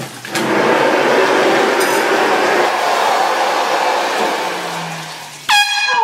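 A loud rushing hiss for about five seconds, then near the end a sudden, very loud blast from a handheld canned air horn, one strident tone held for about half a second.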